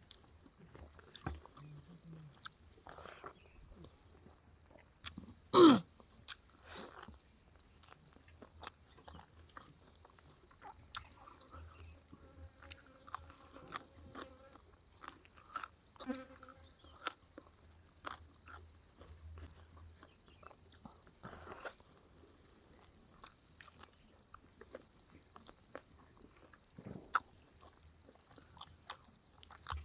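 A person chewing and biting food close to the microphone, with scattered small wet clicks. One loud, sharp sound that drops quickly in pitch comes about five and a half seconds in, over a steady high-pitched hum.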